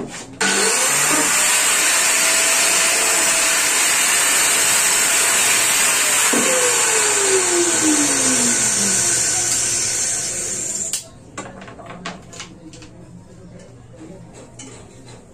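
Electric angle grinder running, loud and steady, starting about half a second in and cutting off suddenly after about ten seconds. After it stops come light clicks and taps of cut PVC pipe pieces being handled.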